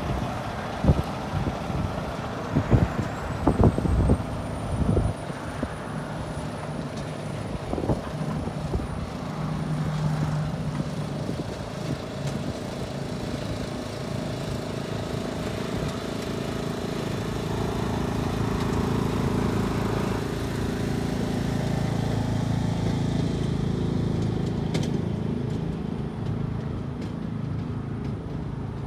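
Freightliner Cascadia semi tractor's diesel engine pulling an empty aluminium flatbed trailer away across gravel, with a few sharp knocks in the first seconds. A faint high whistle rises and then holds, and the engine grows louder past the middle before easing as the rig moves off.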